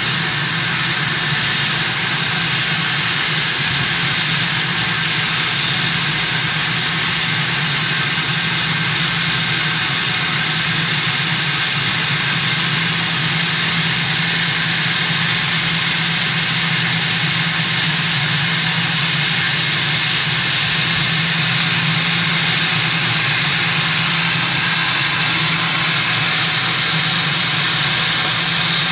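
Private jet's twin rear-mounted turbofan engines running at taxi idle: a steady roar with a high whine, growing slightly louder as the jet draws near and stops. Heard from inside a vehicle on the ramp.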